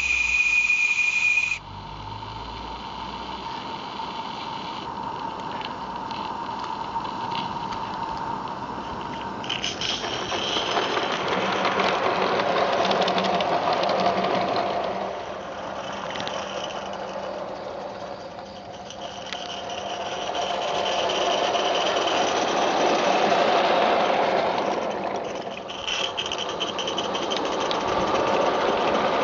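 Merlin Locomotive Works 'Major' 0-6-0 garden-railway steam locomotive: its steam whistle cuts off about a second and a half in, leaving a steady hiss of steam. From about ten seconds in the locomotive runs with its train, a rattling mechanical sound of exhaust beat and wheels on the track that swells and fades as it goes round the line.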